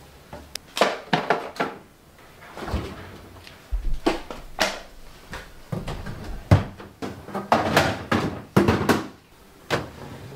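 Plastic food-storage boxes knocking and clattering as they are handled and put into a refrigerator, a string of irregular clicks and knocks, with the fridge's plastic crisper drawer being handled near the end.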